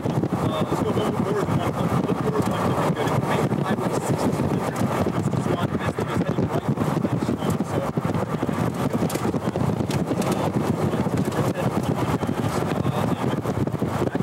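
Steady rushing, rumbling noise of a running vehicle mixed with wind.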